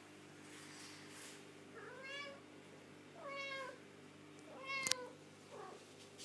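A domestic cat meowing three times, each meow about half a second long, with a sharp click during the third.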